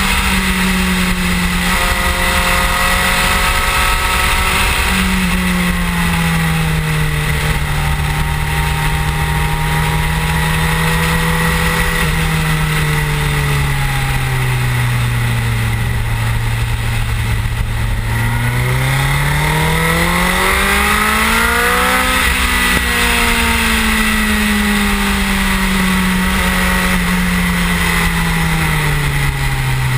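Suzuki GSX-R1000 K7's inline-four engine at speed, heard under heavy wind noise over the fairing. The engine note steps a couple of times near the start as the gears change, sags slowly through the first half, climbs steeply about two-thirds in, then falls away again.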